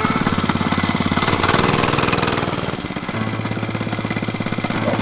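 Monster Moto 105 mini bike's small single-cylinder four-stroke engine running with a steady firing rhythm, picking up a little about a second and a half in and easing off near three seconds before running on evenly.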